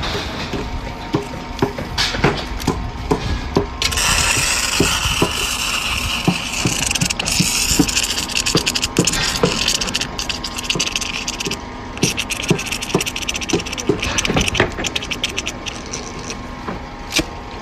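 Electric arc welding: a dense, crackling hiss that starts about four seconds in, breaks off briefly near twelve seconds and stops about fourteen seconds in. Before and after it comes a run of regular knocks, about two a second.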